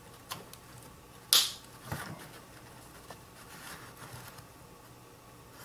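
Small pry tool clicking and scraping against the glued plastic access cover of a pop-up headlight motor, with one sharp pop about a second and a half in and a fainter click soon after. The pop is the kind the repair instructions say comes as the glued cover breaks loose.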